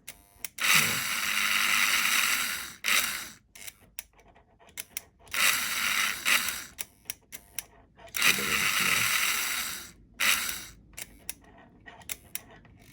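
Märklin HR 800 N model locomotive's electric motor and gearing whirring in three runs of about two seconds, each stopping abruptly, with short clicks between the runs from the locomotive's reversing switch as the power is cut and reapplied.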